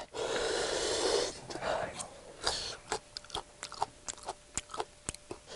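Close-miked chewing of spicy enoki mushrooms: a string of short wet mouth clicks and smacks, after about a second of noisy, breathy sound at the start.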